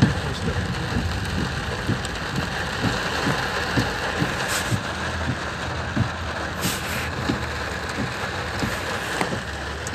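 Torrential rain drumming on a car's roof and windscreen, heard from inside the cabin: a dense, steady patter thick with low knocks from the heavy drops.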